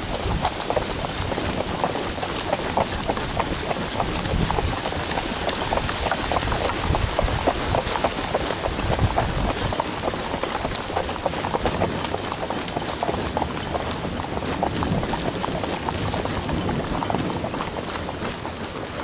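Hoofbeats of a ridden horse moving along a wet dirt trail, a continuous run of irregular clip-clop strikes, over the steady hiss of falling rain.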